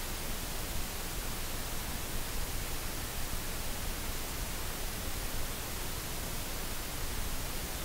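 Steady, even hiss that does not change, with no engine, tool or other distinct sound in it.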